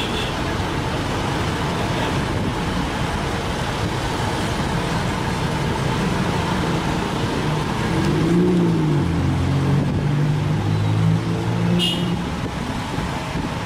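Dump truck engine pulling away slowly over steady road traffic noise; the engine note rises and falls about eight seconds in, then holds steady for a few seconds. A single short click comes near the end.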